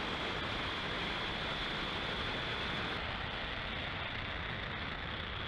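Falcon 9 rocket's first stage and its nine Merlin 1D engines running in a steady, dense roar during ascent just after liftoff. The sound turns duller about three seconds in.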